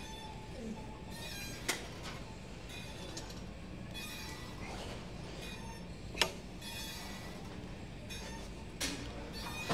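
Gym ambience: a steady low rumble with faint music, broken by three sharp clinks, about two seconds in, about six seconds in and near the end.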